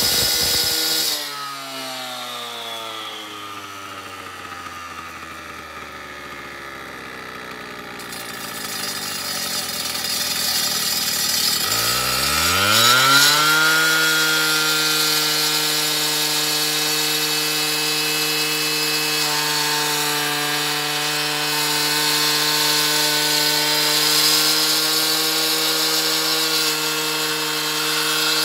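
Gas-powered handheld cut-off saw wet-cutting a concrete curb, with water fed onto the blade to keep it cool. About a second in the engine eases off and its pitch sinks slowly for some ten seconds. Near twelve seconds it revs back up and holds a steady high pitch through the cut.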